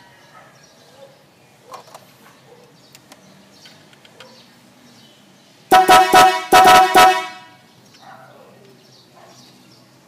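Manhattan giant electric snail horn honked in a quick run of about five short blasts, a little past halfway through, lasting about a second and a half.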